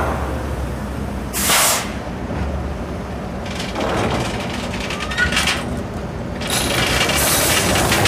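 A steady low engine-like rumble of a vehicle, with brief hisses about one and a half, four and five seconds in, and a louder rushing noise from about six and a half seconds.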